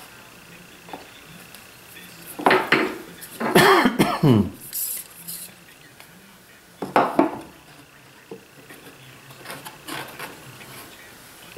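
Steel combination square clinking and scraping as it is handled, slid and set down, loudest in a cluster a third of the way in and again past halfway, with lighter taps near the end.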